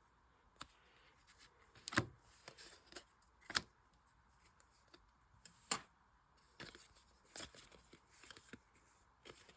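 Star Wars: Unlimited trading cards being handled and flipped through one at a time: soft sliding with a sharp card snap every second or two, four of them louder than the rest.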